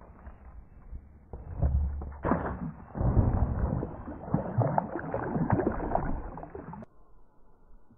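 Slowed-down splashing and sloshing of pool water as a plastic toy boat comes off an inflatable water slide and lands in the pool. It starts about a second and a half in, is loudest around three seconds, and cuts off sharply near the end, deep and muffled from the slowing.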